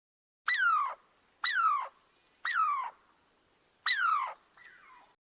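Kitten mewing: four high cries, each falling in pitch and lasting about half a second, about one a second, then a fainter fifth mew near the end.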